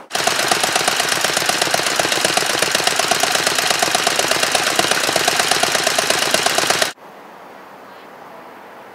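Vintage Excelsior V-twin motorcycle engine running with an open exhaust, popping in a quick, even rhythm, then cutting off suddenly about seven seconds in.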